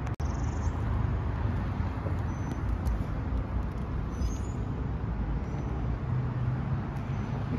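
Steady road traffic noise from passing vehicles, with a brief dropout just after the start.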